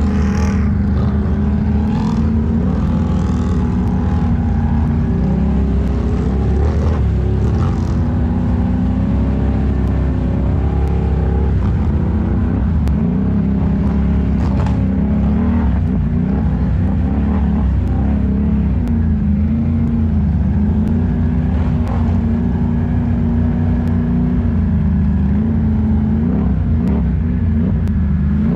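Can-Am Renegade 1000 ATV's V-twin engine running under way, its revs rising and falling with the throttle, with a few brief knocks.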